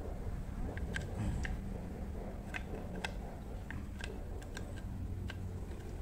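Scattered, irregular light clicks and ticks of a Ryobi Adventure 120 fishing reel's metal frame plate and parts knocking against its plastic side cover as they are fitted together by hand, over a steady low hum.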